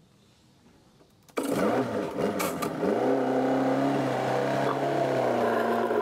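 An engine starts suddenly about a second and a half in, its pitch swinging up and down briefly before it settles into a steady run.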